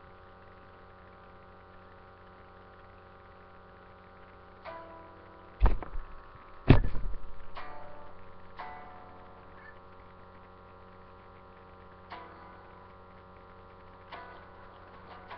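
Electric guitar played sparsely, single notes and chords picked at irregular moments over a steady electrical hum. The two loudest strikes come about five and a half and six and a half seconds in, and the second rings out slowly.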